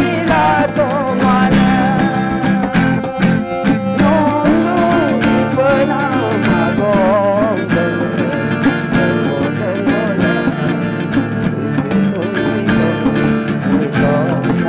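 A man singing a traditional Mising folk song while playing a harmonium: sustained reedy harmonium chords under a wavering solo voice.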